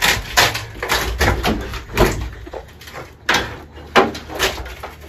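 Rotten plywood floor sheet of a Toyota Coaster bus being pried and ripped up: an irregular string of cracks, scrapes and thuds as the soft, rotted board tears away from the floor.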